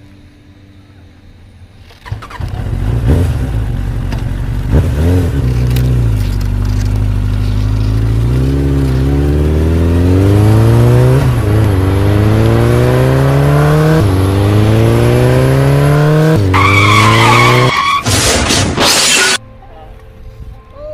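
Vehicle engine sound effect revving and accelerating through several gear changes, the pitch climbing and dropping back at each shift, then a tyre screech and a harsh burst of noise near the end that cuts off suddenly.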